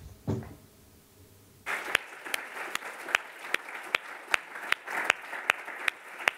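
Audience applauding, starting about a second and a half in, with one person's claps standing out sharply and evenly at about two and a half claps a second.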